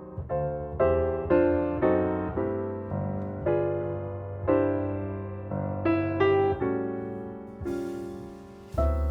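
Background piano music: slow chords and single notes, each struck and left to fade. Near the end a soft hiss and a low steady hum come in under the piano.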